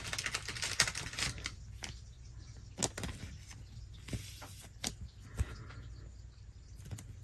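Trading cards being handled: cards sliding and flicking against each other, with light rustling and scattered sharp clicks.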